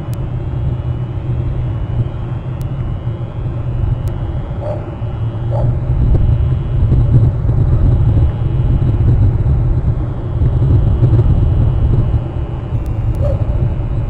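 Steady low rumble with no clear pitch, growing louder about six seconds in and easing again near the end.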